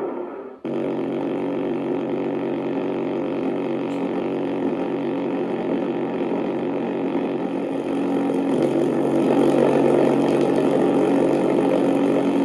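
Steady droning buzz of a V-1 flying bomb's pulse-jet engine in flight. It breaks off for a moment about half a second in, then runs on and grows a little louder from about eight seconds.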